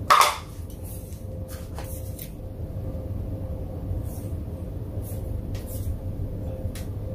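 A glass sugar jar being opened and sugar spooned out: a short knock at the start, then scattered faint clicks and clinks of the metal lid, glass and spoon, over a steady low hum.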